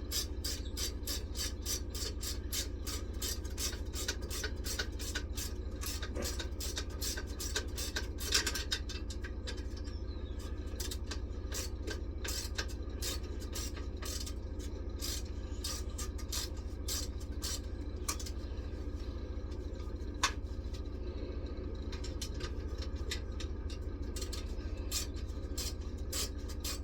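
Ratchet spanner clicking in quick runs as it tightens the clamping bolt of a Tyron run-flat band in a caravan wheel rim. The clicks thin out for a few seconds midway, then pick up again.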